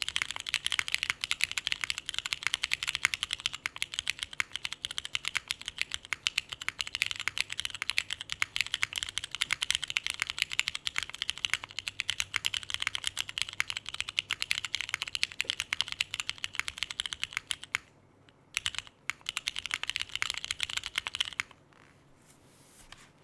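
Fast typing on a Snake60 R2 O-ring-mounted mechanical keyboard fitted with Cherry MX Hyperglide Brown tactile switches: a dense stream of keystroke clacks. It breaks off briefly twice near the end, then stops about two seconds before the end.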